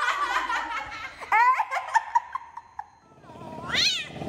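Laughter in quick, repeated 'ha-ha' pulses that fall in pitch, in two runs, with a short rising cry near the end.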